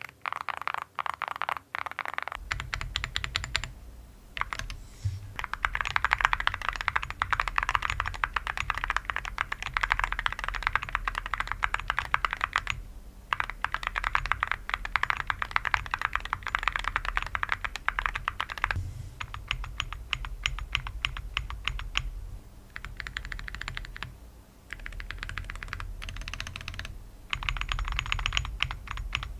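Fast typing on a custom mechanical keyboard fitted with full metal keycaps, a dense stream of key clacks in long runs with brief pauses between them. A steady low hum sits underneath from about two seconds in.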